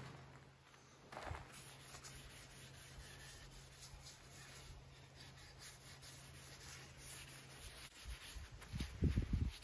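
A cloth rag rubbing along a wooden axe handle, a soft faint scuffing. A faint steady low hum runs behind it and stops near the end, and a few louder low thumps follow just before the end.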